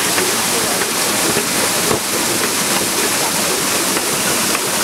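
Loud, steady rush of water through a traditional Nepali water mill (ghatta), spilling out from beneath the mill house where it turns the millstone. A few faint ticks show over the rush.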